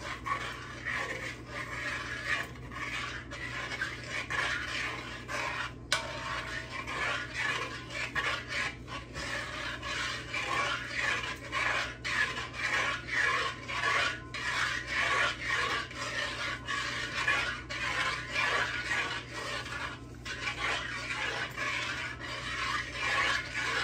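Metal spoon stirring rice in water in a large metal pot, scraping along the bottom in repeated rasping strokes about twice a second, with one sharp knock about six seconds in.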